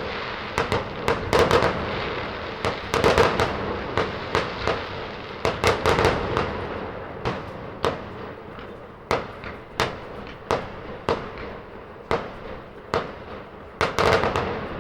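Fireworks going off: a rapid, irregular string of sharp bangs over a continuous crackling haze. The bangs grow sparser and the crackle fainter over the second half.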